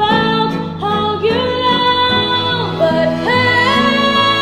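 A woman singing a slow song, her voice layered into several-part harmony, with long held notes moving from chord to chord.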